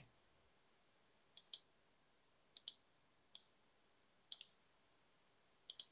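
Faint computer mouse clicks: about five, spaced roughly a second apart, most of them a quick double tick of button press and release.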